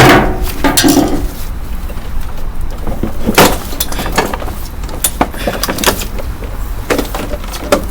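Scattered knocks and clatter, several seconds apart, from handling a walk-behind lawn mower while getting it ready to drain its oil. The loudest knock comes about three and a half seconds in. A steady low rumble runs underneath.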